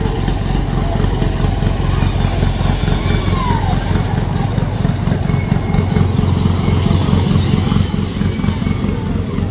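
A motor engine running steadily, with a low, rapid pulse that grows slightly louder in the middle. About three seconds in there is a brief falling tone.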